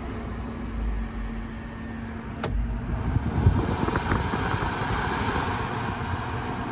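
5000 BTU air conditioner humming on a power station, drawing about 520 watts without running properly. A single sharp click comes about two and a half seconds in, after which the steady hum gives way to a rougher whooshing noise.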